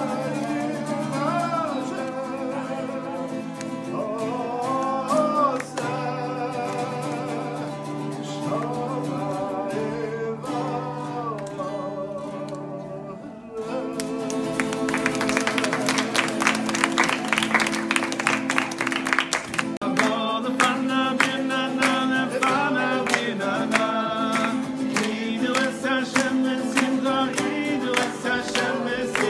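A man sings while strumming an acoustic guitar. About fourteen seconds in, the strumming gets louder and denser, and near the end listeners clap along.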